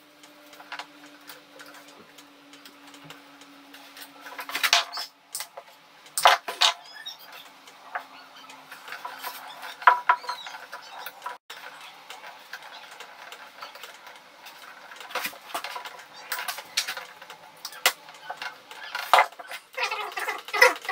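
Scattered clicks, taps and light metallic clatter from a metal light-switch back box, its fittings and hand tools being handled during wiring.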